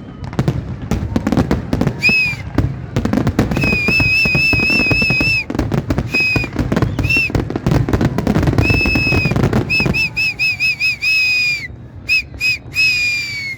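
Fireworks going off: a dense run of bangs and crackling for about ten seconds, then thinning out. Over it come repeated shrill whistle blasts, one of them trilling, and a quick series of short blasts near the end.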